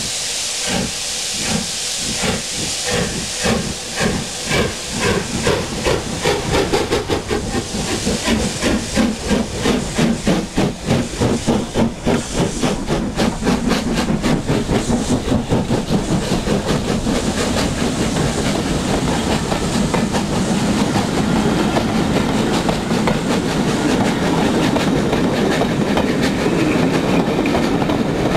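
Two steam locomotives double-heading, LMS 4F 0-6-0 No. 44422 and Jubilee 4-6-0 No. 5690 Leander, working a train past with a hiss of steam and their exhaust beats coming louder and quicker as they draw near. After about halfway the beats give way to the steady rumble and wheel clatter of the coaches rolling by.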